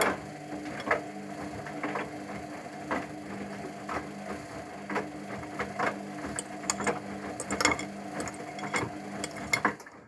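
Luxor WM 1042 front-loading washing machine in the wash phase of a synthetics 40°C programme. The drum motor hums steadily as it turns the drum, and the wet, soapy laundry sloshes and knocks about once a second. The motor winds down near the end.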